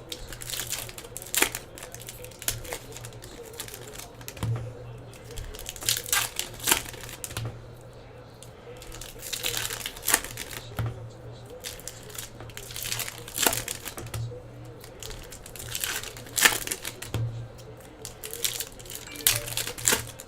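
Foil wrappers of hockey card packs crinkling and tearing as the packs are opened, in irregular sharp crackles, with cards being handled.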